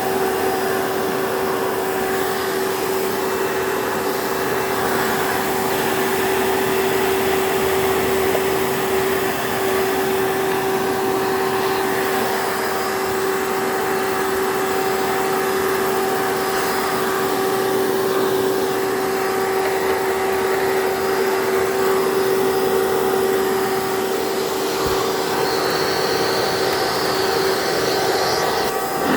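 Hoover PowerMax 2 upright vacuum running steadily, a constant motor whine over airflow noise. It runs a little noisier than expected, enough that the owner is thinking of replacing the motor.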